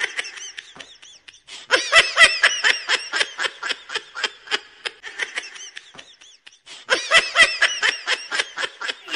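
A man laughing in two long bouts of rapid, repeated "ha-ha" pulses, with a short pause between them.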